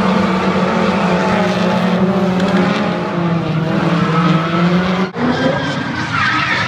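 Drift cars' engines revving up and down under full throttle with tyres squealing as they slide. About five seconds in, the sound cuts off for an instant, then picks up again on another car's engine and tyre squeal.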